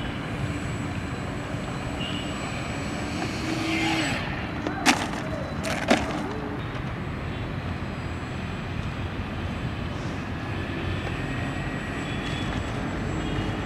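Small electric motor and propeller of a homemade cardboard RC airplane running steadily on the ground, mixed with wind noise. Two sharp knocks come about a second apart near the middle.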